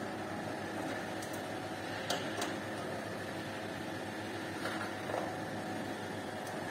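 Steady hum of factory-hall ventilation and machinery, with a few light clicks and taps from hand work inside a sheet-metal air-conditioning unit housing.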